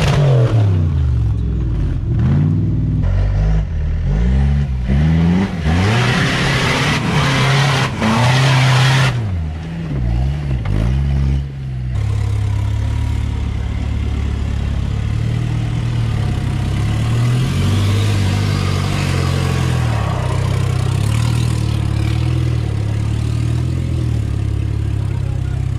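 Off-road 4x4 engine revving up and down repeatedly, with loud bursts of rushing noise from about 5 to 9 seconds in. After a sudden change about halfway, an engine runs more steadily at lower revs, with gentle rises and falls.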